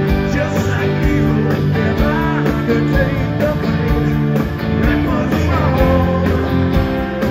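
A live blues-rock band plays, with electric guitar prominent over bass and a steady drum beat, recorded on a phone.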